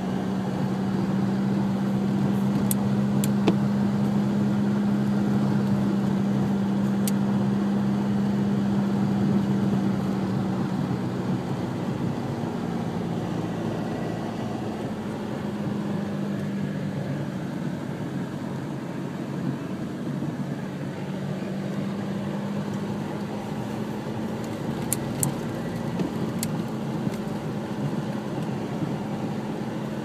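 A car's engine hums steadily with tyre and road noise on a snow-covered street, heard from inside the car. The hum eases off about a third of the way in and picks up again later. A few faint ticks can be heard.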